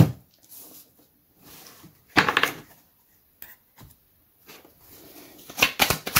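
Tarot cards handled on a wooden table: a sharp tap as a card is set down, a short sliding brush about two seconds in and a few light clicks. Near the end comes a fast run of flicks as the deck is shuffled.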